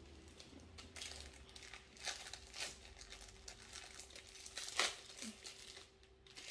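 Packaging crinkling in the hands as small fidget toys are handled, in irregular crackles, the loudest a little before five seconds in.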